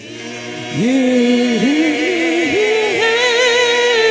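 Gospel vocal group singing long held notes in harmony, with several voices moving together. The voices swell about a second in and hold a chord with vibrato near the end.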